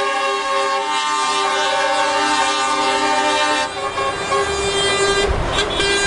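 Lorry air horns: a long steady blast that cuts off about three and a half seconds in, then a second shorter blast near the end over the low engine rumble of passing tractor units.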